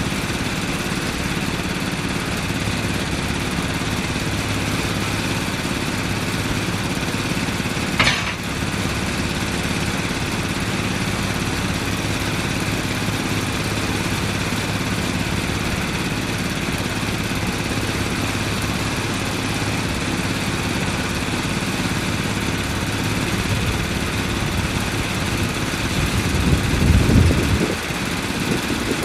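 A diesel engine idling steadily, with a brief sharp hiss about eight seconds in and a louder low rumble near the end.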